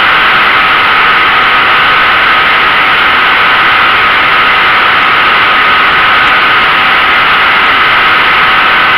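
RC flying wing's motor and propeller running steadily at constant pitch, a whine over heavy wind rush on the onboard camera.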